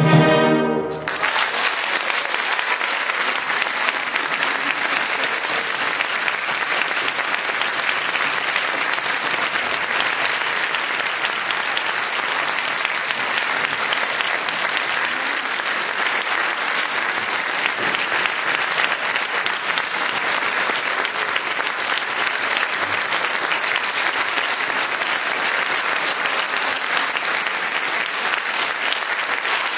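The orchestra and pianos end on a final chord about a second in, and the audience breaks at once into steady, sustained applause.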